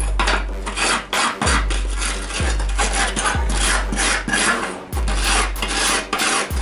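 A hand wire brush scrubbing back and forth over an oil lamp's perforated brass burner plate in quick rasping strokes, cleaning off soot and corrosion. Background music with a deep bass beat about once a second plays underneath.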